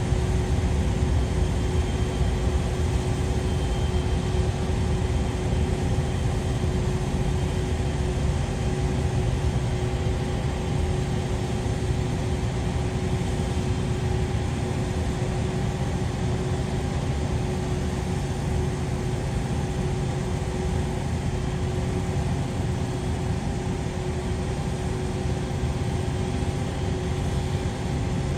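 Boeing 777 freighter's twin GE90 turbofan engines at low taxi power as the jet rolls past: a steady whine over a low rumble.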